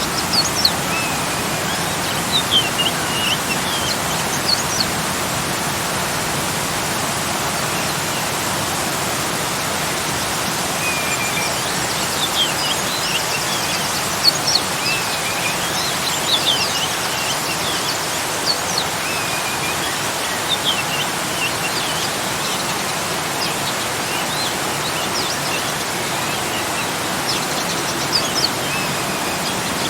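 Small garden waterfall flowing with a steady rush of water, while songbirds chirp and warble on and off over it, most busily in the middle stretch.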